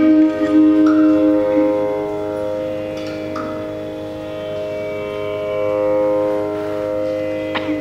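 Tanpura drone sounding steadily, its layered tones unchanging. A held melodic note fades out over the first second and a half, and a couple of faint taps come in the middle and near the end.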